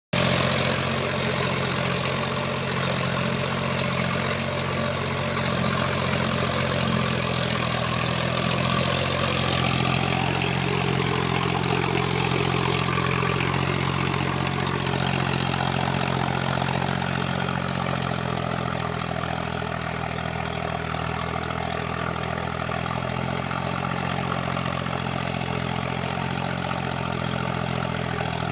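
Sonalika tractor's diesel engine idling steadily, its low rumble wavering slightly in pitch now and then.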